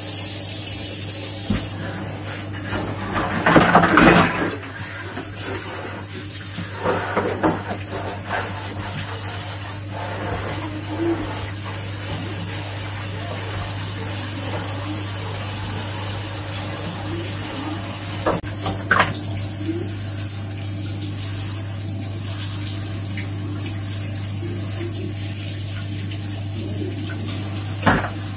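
Water running steadily with a low hum underneath, and a few knocks and clatters, the loudest about four seconds in.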